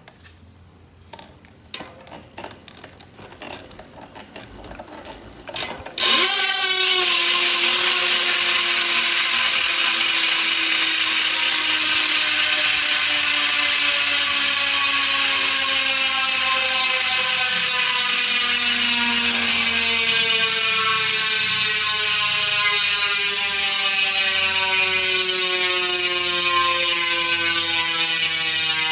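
SPEEDONE Sniper 2025 freehub ratcheting as the rear wheel coasts. A few faint, slow clicks at first, then about six seconds in a loud, dense buzz starts as the wheel is spun up, its pitch slowly falling as the wheel slows.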